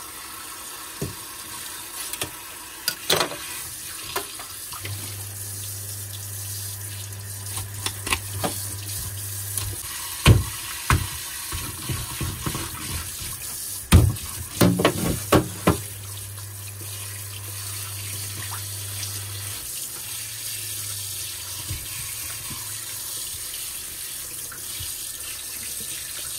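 Tap water running steadily into a stainless-steel sink over a whole chicken on a wooden chopping board. Around the middle come a handful of heavy knocks, a cleaver chopping the chicken on the board.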